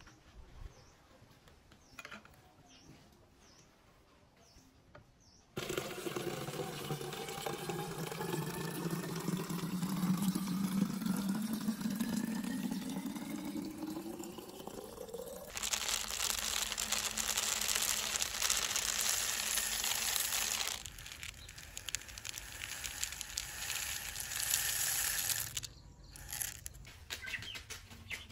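Water from a tap pouring into a plastic soda bottle, the pitch of the filling rising steadily over about ten seconds as the bottle fills, then a louder, even rush of running water for several seconds.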